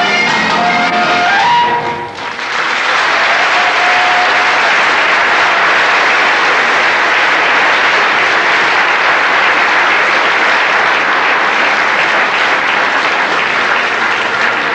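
Live Breton folk music ends about two seconds in, and the audience breaks into steady applause for the rest.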